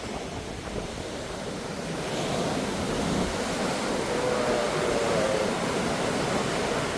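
Ocean surf washing in below the pier, with breeze buffeting the microphone; the wash swells about two seconds in and stays up.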